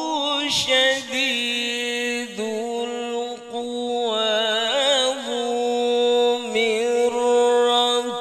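Male Quran reciter chanting in the melodic tilawah style into a microphone, holding long notes with wavering, ornamented runs of pitch.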